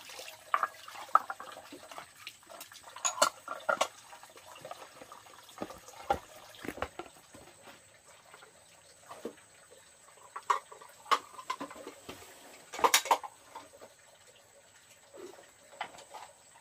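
Dishes and utensils clinking and clattering at irregular moments, loudest in a short cluster about three-quarters of the way through.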